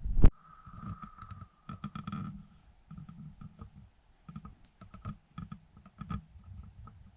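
A single loud knock, then a run of light clicks and taps at an irregular pace, like typing or small objects being handled.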